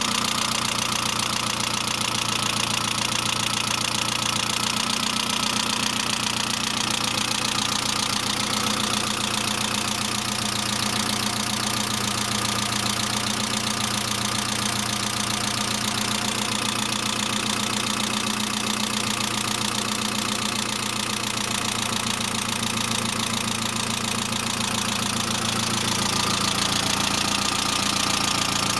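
Saab 900 four-cylinder engine idling steadily with an incessant rapid valve lifter ticking after an engine and head rebuild. The owner takes it for a sign of low oil pressure, now suspecting a sticking oil pressure relief valve.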